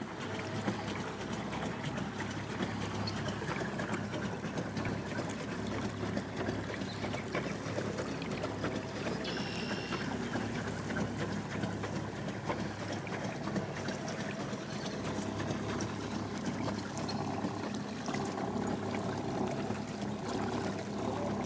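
Water churning and trickling steadily around a pedal boat under way, with a faint steady hum underneath.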